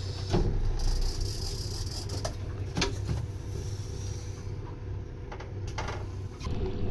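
A heavy conventional rod and reel being worked against a hooked fish: a few sharp knocks and clicks and some faint hiss over a low, steady rumble.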